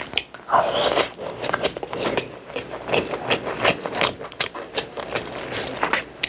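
Close-up chewing of food: irregular crunchy clicks and wet smacks several times a second as someone eats, with a louder crunch about half a second in.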